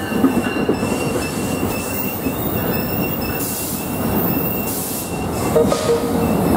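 New Jersey Transit Multilevel coaches rolling past close by, with a dense rumble and clatter of wheels on rail. A thin, steady high-pitched wheel squeal runs throughout, and a lower squeal joins about five and a half seconds in.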